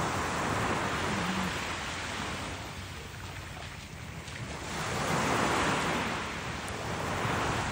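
Gentle surf washing up the beach, swelling twice: about a second in, then more strongly around five to six seconds in. A low wind rumble on the microphone runs underneath.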